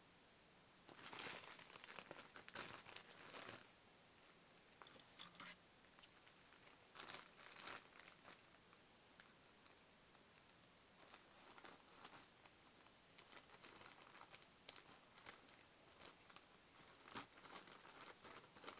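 Plastic poly mailer bag crinkling in irregular bursts as it is handled and cut open with scissors, the blades snipping through the plastic.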